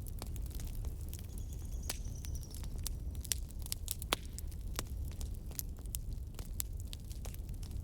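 Burning firewood crackling: sharp, irregular pops over a steady low rumble of the fire. About a second and a half in, a faint high whistle lasts about a second.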